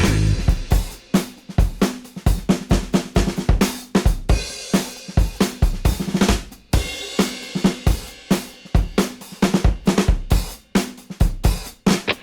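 Background rock music at a drum-only break: a drum kit playing a fast, busy beat of snare, bass drum and cymbals, with no guitar.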